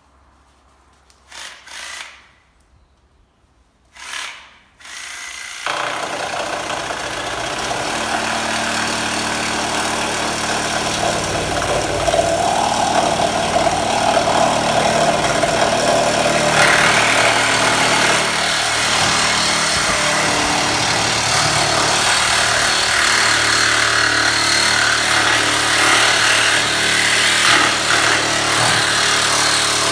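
Reciprocating saw cutting through a car's steel body: two short bursts in the first five seconds, then cutting continuously from about six seconds in, growing louder over the next few seconds.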